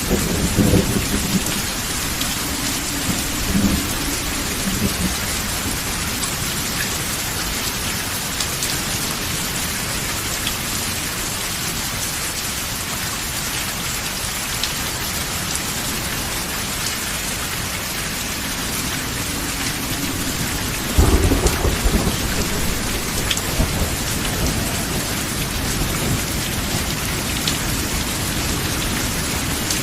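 Steady rain falling in a thunderstorm, with a low roll of thunder near the start and a louder thunderclap rumbling about two-thirds of the way through.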